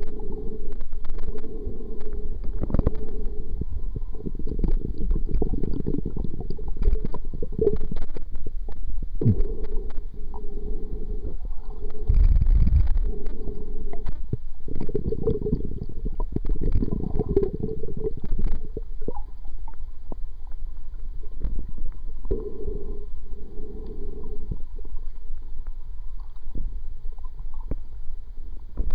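Muffled underwater rumble and gurgling heard through a submerged waterproof camcorder's built-in microphone, swelling and fading every few seconds, with scattered small clicks.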